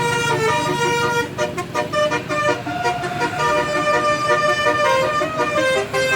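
Bus telolet horn playing a melody: several horn tones sounding together and stepping from note to note, over the low rumble of the bus engine.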